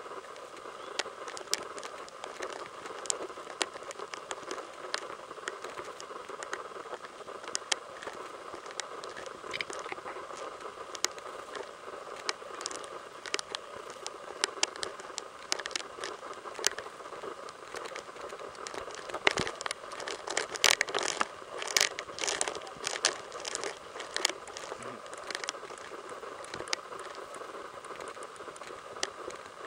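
Footsteps on a sandy path strewn with dry palm litter, with irregular crunching and crackling that comes thicker for a few seconds past the middle, over a steady background hiss.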